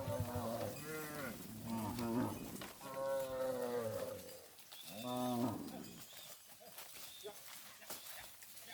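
Cattle mooing: several long calls, overlapping and rising and falling in pitch, through the first four seconds or so, then one shorter call about five seconds in.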